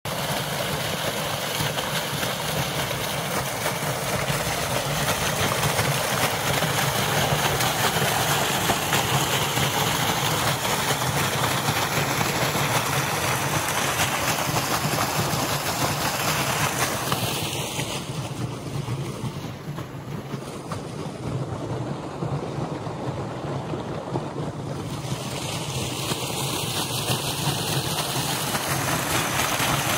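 Water gushing steadily from a tubewell outlet pipe and rushing into an irrigation channel. It is a continuous rush that grows quieter for several seconds past the middle, then comes back up.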